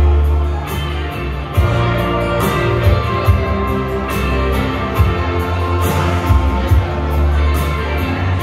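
Dutch pop song playing an instrumental passage between sung lines, with a steady bass line and drum hits.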